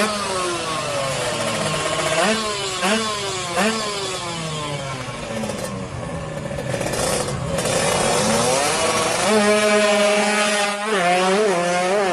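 Drag-tuned Kawasaki Ninja R two-stroke motorcycle engine revved in repeated throttle blips, its pitch rising and falling. About nine seconds in it is held at higher revs, with a few more quick blips near the end.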